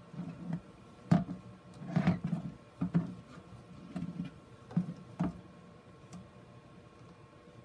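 Hard plastic grid board knocking and scraping against a plastic bucket lid as it is turned and shifted by gloved hands: a string of short, irregular knocks about once a second, dying away about five seconds in.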